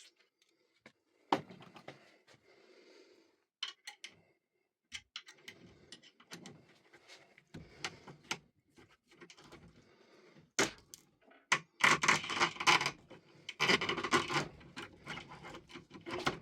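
Metal clicks, scraping and rattling as a pick tool turns the cylinder of a Vachette Radial lock back and forth, working the lock open and closed. A dense run of rattling about twelve seconds in is the loudest part.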